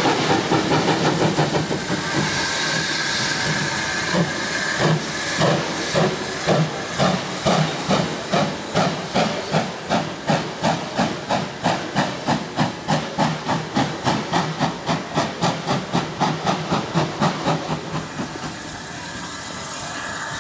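LMS Ivatt 2MT 2-6-2 tank engine No.41312 pulling away with a train: its exhaust chuffs come in an even beat that quickens steadily over steady steam hissing, and the beats die away near the end.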